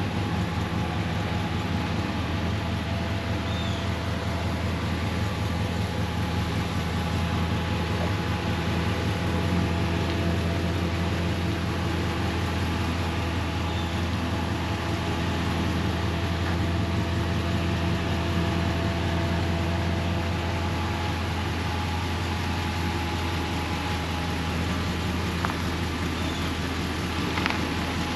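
Steady hum of a vehicle engine running, even throughout, with a couple of faint ticks near the end.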